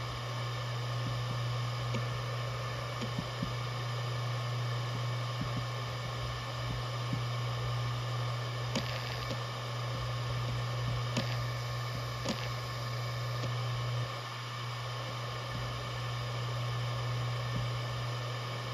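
Maxtor DiamondMax 17 160GB 7200 RPM hard drive spinning with a steady hum and buzz, the buzz normal for this model. Small read/write-head seek ticks come and go, with a few sharper clicks around the middle.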